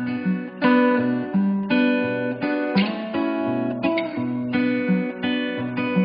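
Background music: a strummed guitar playing chords in a steady rhythm.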